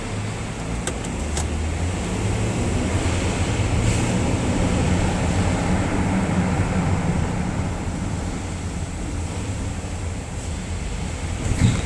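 2011 Ford Edge moving up a parking ramp while steering left, with a low hum that swells from about two seconds in and eases off later: the noise of unknown cause that the owner is asking about. A few faint ticks come early, and there is a single knock near the end.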